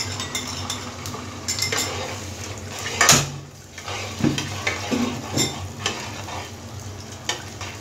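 Beaten eggs sizzling in hot oil in a square pan while a spatula stirs and scrapes them against the pan bottom, with small clicks throughout. A single sharp knock of the utensil or bowl against the pan about three seconds in.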